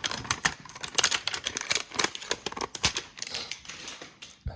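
Crinkling and tearing of a trading-card pack's plastic wrapper by hand, a dense run of sharp crackles, with a soft thump near the end.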